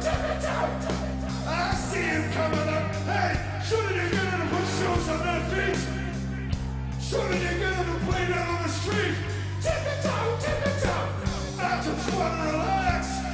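Live rock band playing, with a voice singing and yelling over low held bass notes that shift every second or two.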